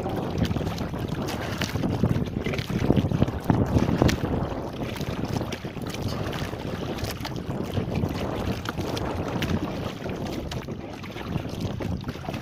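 Wind noise on the microphone over water lapping against a small boat, with scattered light knocks.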